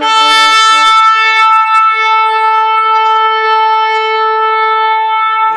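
A single long horn blast held steadily at one pitch, rich in overtones. A second, lower note sounds under it for about the first second and a half.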